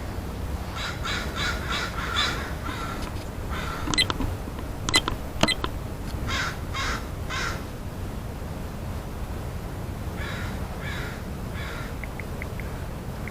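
Crows cawing in runs of short calls: a quick series near the start, then groups of three later on. A few sharp clicks come about four to five and a half seconds in, over a steady low rumble.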